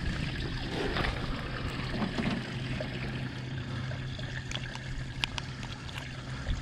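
Water trickling and lapping steadily around a small fishing boat, with scattered light clicks as a snapper is unhooked in a metal lip-grip tool.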